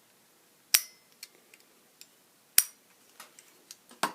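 Old double-pole push-button light switch being worked, its mechanism snapping over with two sharp clicks about two seconds apart, with fainter ticks between them and a few more clicks near the end.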